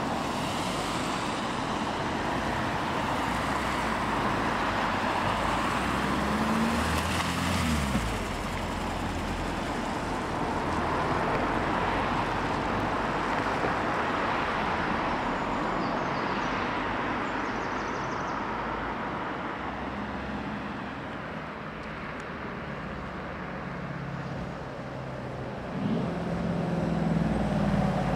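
Cars driving past one after another on a wet road: engines running over a steady hiss of tyres on wet tarmac. One engine's pitch falls about seven seconds in, and a louder engine comes close near the end, a white Mercedes G-Class.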